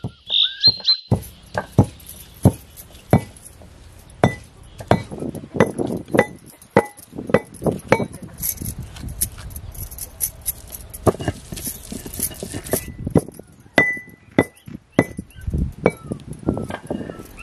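Pestle pounding dried spices in a stone mortar to make masala: sharp, ringing knocks a little under two a second, with a short break past the middle before the pounding resumes.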